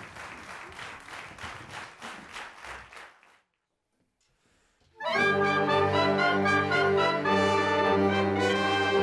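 Audience applause dying away, then after about two seconds of quiet a concert wind band comes in with loud, sustained brass chords of trumpets, trombones and horns.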